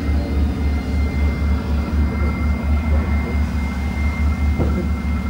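Armoured military vehicle driving across a field: its heavy engine gives a low, pulsing throb, with a steady high whine above it.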